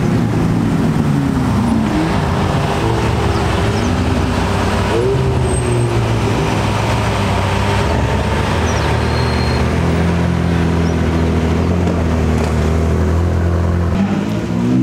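Sports car engines and exhausts as a line of supercars drives slowly past, the revs rising and falling. A deep, steady engine note runs through the second half.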